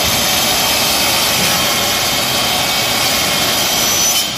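Makita LS1018L 260 mm compound miter saw running at full speed, its blade cutting through a large PVC pipe with a steady, dense noise. The noise drops suddenly near the end.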